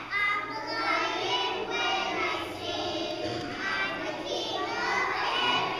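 A group of pre-K children singing a song together.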